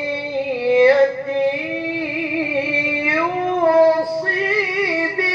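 A man reciting the Qur'an in the melodic tilawah style into a microphone, holding long, high, ornamented notes in an unbroken phrase, the pitch stepping up about a second in and again past three seconds.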